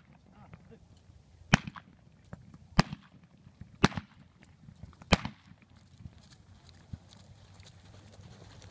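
Four sharp cracks a little over a second apart, ending about halfway through: blank gunshots fired on a mounted-shooting balloon course.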